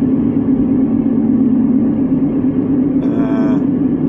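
Steady in-cabin drone of a car driving at an even speed: engine and tyre noise with a strong, constant low hum. A brief pitched sound comes about three seconds in.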